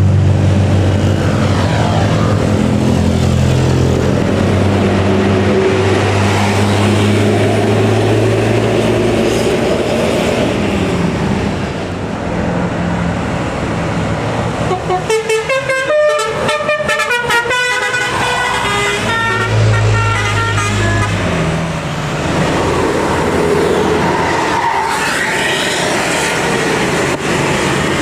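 Buses running uphill and sounding multi-tone telolet (basuri) horns. Low horn notes held and changed in steps through the first ten seconds or so. Around the middle comes a quick run of bright, rapidly changing notes lasting about four seconds.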